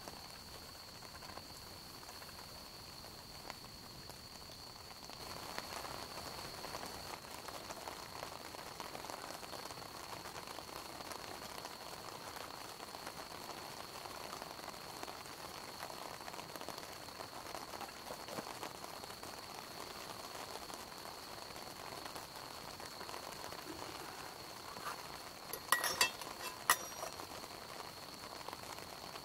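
Soft steady sizzling and crackling from campfire cooking, growing louder about five seconds in. A few sharp clicks or knocks come near the end, over a thin steady high tone that runs throughout.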